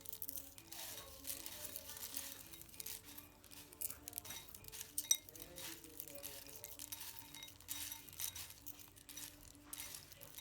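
Roasted peanuts being handled to rub off their papery skins: many light clicks and rustles of the nuts knocking together, over soft background music.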